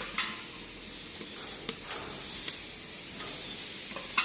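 Wood fire burning in a stove-fireplace: a steady hiss with a few sharp crackles.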